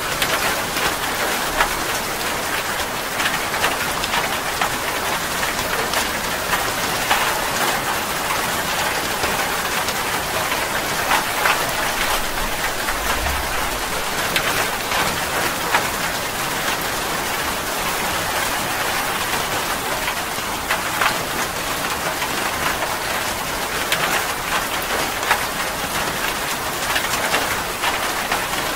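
Heavy rain falling steadily, with many sharp individual drop impacts scattered through the hiss.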